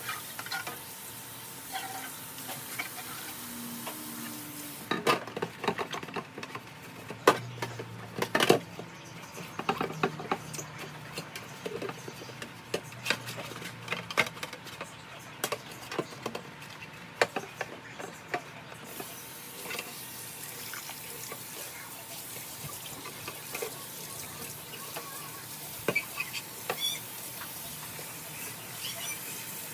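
Kitchen cleaning sounds: a busy run of clicks, knocks and clinks of containers and dishes being handled, loudest a few seconds in and thinning out in the second half, over a steady hiss.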